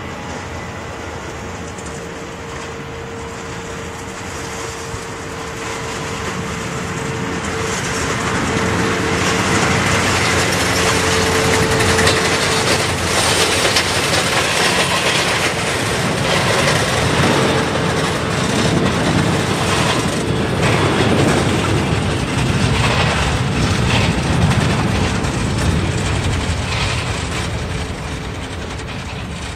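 Jet airliner engines passing close by: a loud, broad rush with a steady held tone, swelling over several seconds to its loudest in the middle and easing off near the end.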